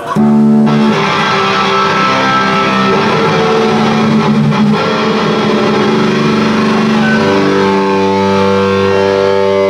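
Live band with electric guitar and drums, kicking in together all at once and playing loudly.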